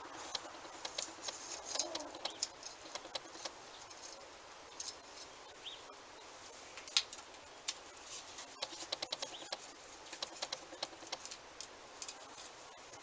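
Hand work on a bench grinder's motor housing: scattered light clicks and taps of a screwdriver and small screws against metal, the sharpest about seven seconds in.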